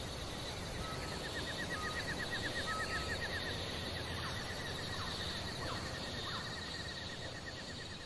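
Outdoor forest ambience with birdsong: a rapid trill of quickly repeated high notes over a steady hiss, with a few short whistled notes early on and several short upswept calls in the middle.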